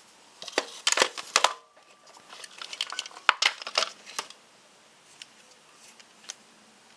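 Sharp metal clicks and clatter from parts and tools being handled in an engine bay, in two bursts: one about a second in and one around three to four seconds in.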